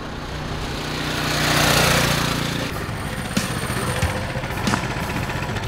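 Coleman CT200 mini bike's 200cc single-cylinder engine running flat out at its stock, governed top speed as the bike rides up and passes close by, loudest about two seconds in, then quieter.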